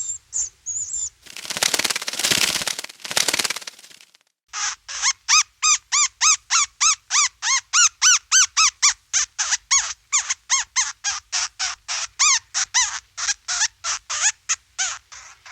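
Bat calls: a fast, even string of chirps, about three a second, each rising and falling in pitch, which starts a few seconds in after a stretch of hissing noise and a few short high whistles.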